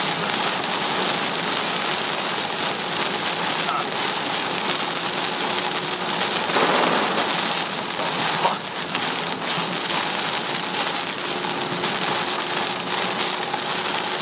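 Torrential thunderstorm rain beating on a car's roof and windshield, heard from inside the moving car as a steady heavy hiss that swells briefly about halfway through.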